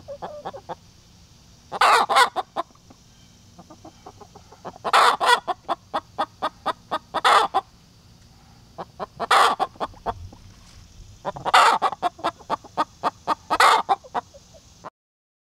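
A hen cackling: runs of short clucks, each building to a loud, drawn-out squawk, about seven times. The hen is upset, which the keeper puts down to other hens taking over the nesting box.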